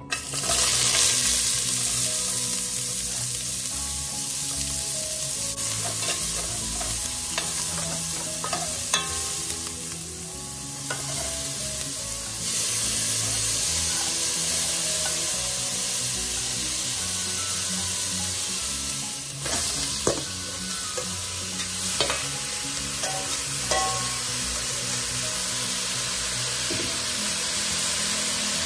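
Onions and then chopped tomatoes sizzling as they fry in hot oil in a large aluminium pot, while a metal utensil stirs and scrapes them. A few sharp clinks of the utensil against the pot.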